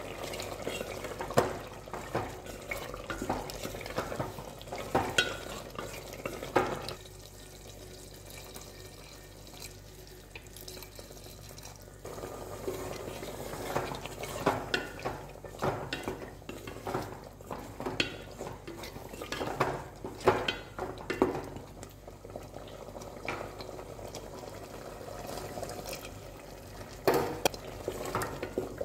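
A ladle stirring thick curry in a steel pot, with irregular knocks and scrapes against the pot and the gravy sloshing, as cornflour is stirred in to thicken it. The stirring pauses for a few seconds partway through.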